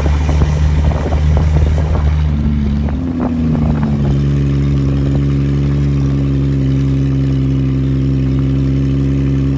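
Ford XR Falcon ute's engine running as the ute drives along. Its note shifts about two to three seconds in, then holds steady.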